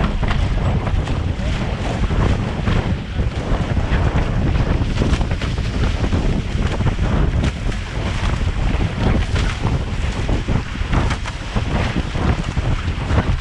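Wind buffeting the microphone of a camera mounted on a sailing catamaran, with water rushing past the hull and spray splashing over it. The wind rumble and spray hiss run steadily, with frequent short splashes through them.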